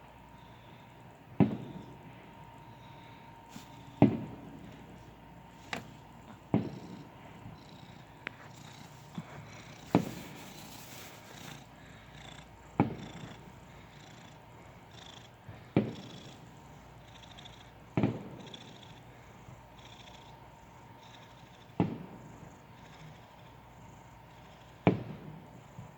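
Fireworks going off, about a dozen sharp bangs two to four seconds apart, each trailing off in an echo.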